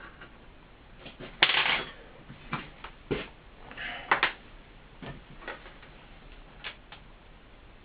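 Handling noise as a loudspeaker is moved about by hand: scattered light clicks and knocks, with a brief louder scraping rustle about a second and a half in.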